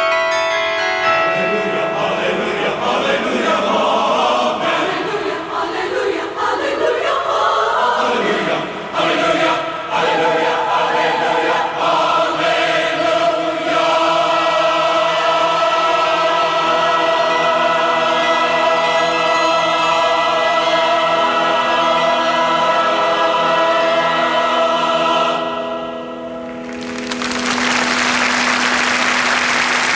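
A choir singing, ending on a long held chord that stops about 25 seconds in; about a second later an audience breaks into applause.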